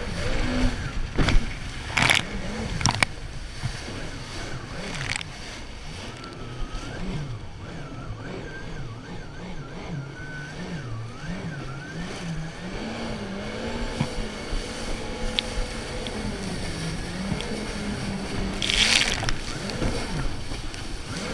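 Jet ski engine running at speed, its pitch rising and falling as the throttle changes, over rushing water and wind on the microphone. Several sharp splashes as the hull slaps through the waves and spray hits, the loudest about two seconds in and again near the end.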